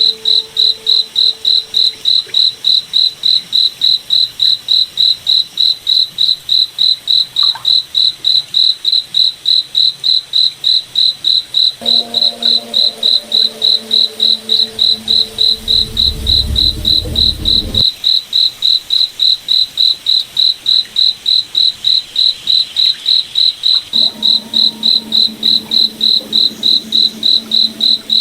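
Crickets chirping in a steady, even rhythm of about three high-pitched chirps a second. A lower humming tone with several pitches joins about twelve seconds in, with a deep rumble under it that stops suddenly about eighteen seconds in, and the hum returns near the end.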